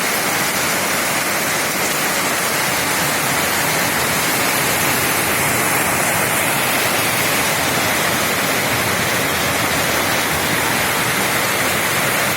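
Rain falling steadily, a dense, even hiss.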